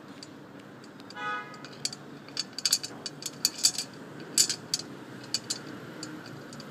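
A short horn-like toot about a second in, then a run of sharp, irregular clicks and light clinks of small hard objects.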